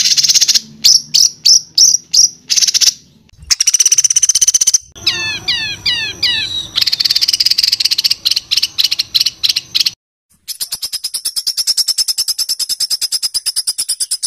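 Recorded songbird song made of harsh, rapid 'tembakan' phrases. It opens with a string of short harsh bursts and a longer harsh phrase, then a quick run of falling whistled notes, more harsh chatter, a brief break, and a fast even rattle of about ten notes a second.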